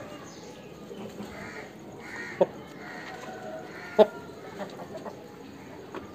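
Aseel chickens clucking softly, with two short sharp sounds standing out, about two and a half and four seconds in.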